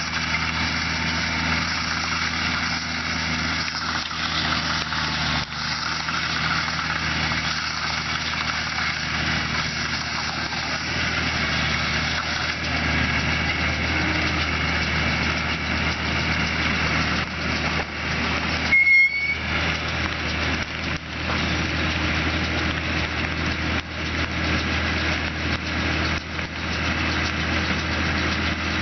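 Case IH Maxxum 140 tractor's diesel engine running steadily while driving a Welger baler, with the baler's mechanical working noise mixed in. A brief sharp high squeak about two-thirds of the way through.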